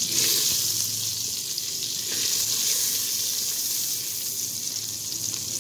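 Butter melting in a little hot oil in an aluminium pot, sizzling with a steady high hiss and faint crackles.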